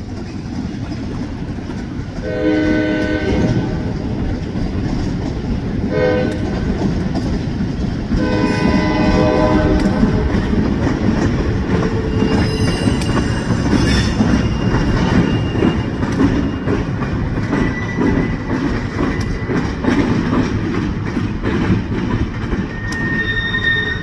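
Juniata Valley Railroad diesel switcher passing slowly with its engine running in a steady low rumble and its wheels clacking. It sounds its horn three times: a long blast, a short one, then a longer one. Thin high squeals from the wheels come later.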